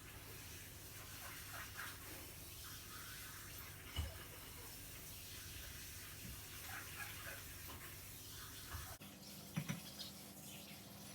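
Faint scuffling of cats play-wrestling on the floor, with scattered light paw and claw sounds, a soft thump about four seconds in and two more near the end.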